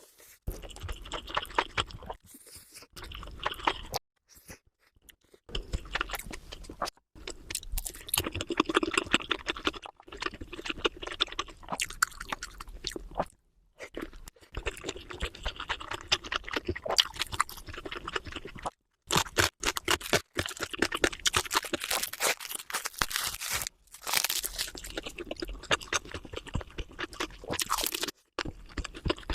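Close-miked chewing and crunching of food, played back at double speed, in dense rapid bites broken by several abrupt cuts.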